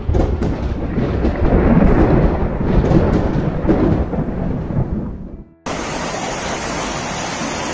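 A deep, loud thunder-like rumble for a logo intro, which swells and then fades away about five seconds in. It is followed by an abrupt cut to the steady rushing of floodwater pouring down a street.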